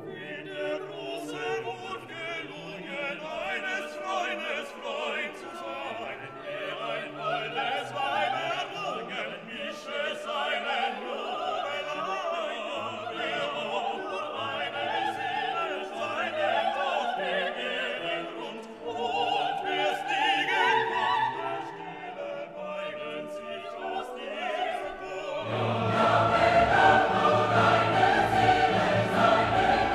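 Background music: choral singing with an orchestra, in a classical, operatic style. It grows louder and fuller, with a deeper bass, near the end.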